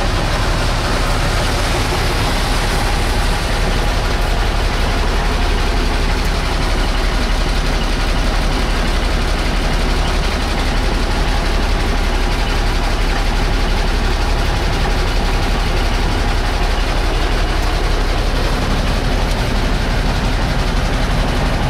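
Kenworth 848 rock truck's diesel engine idling steadily, heard from inside the cab as an even, low rumble.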